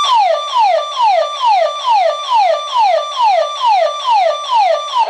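Security system's burglar alarm siren sounding, signalling an intrusion: a repeated falling tone, each held high briefly and then sliding down, about two a second.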